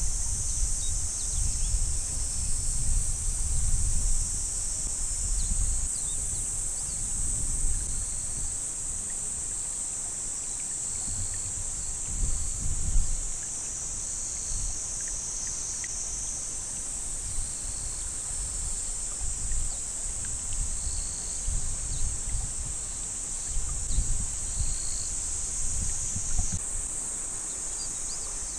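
A steady, high-pitched chorus of insects singing in summer fields, with gusts of wind buffeting the microphone in uneven low rumbles.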